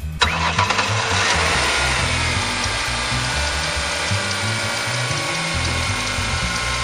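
2004 Ford Taurus V6 firing up just after the start, then idling steadily and evenly: the misfire stutter is gone now that the ignition coil is new. Background music with a low beat plays underneath.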